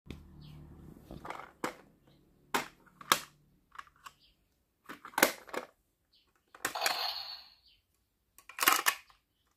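Sharp plastic clicks and clacks of a toy Geartlinger gun being handled, with a short scraping rustle about seven seconds in.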